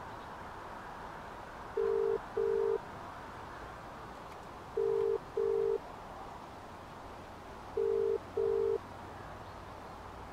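Telephone ringback tone of an outgoing call: the British-Irish double ring, a pair of short, low, steady beeps repeated three times about three seconds apart while the call rings unanswered.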